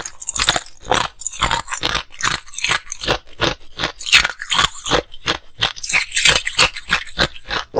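Hard ice being bitten and crunched between the teeth: a quick, uneven run of sharp cracks and crunches, several a second.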